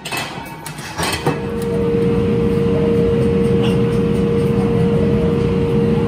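A couple of light metal clinks, then from about a second in a steady machine hum with one held tone over a low rumble.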